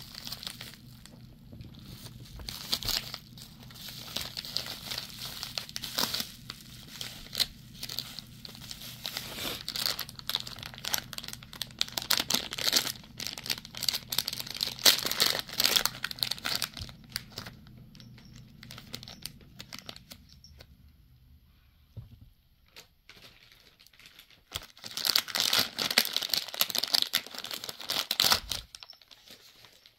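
Plastic bubble mailer and plastic bags crinkling and tearing as they are opened by hand, in bursts, with a quieter stretch a little past the middle.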